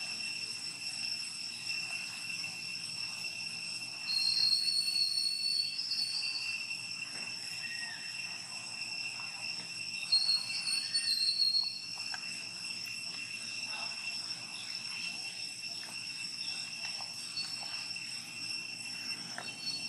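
Steady high-pitched drone of insects in the trees, with two louder, higher calls rising over it about four seconds in and again about ten seconds in.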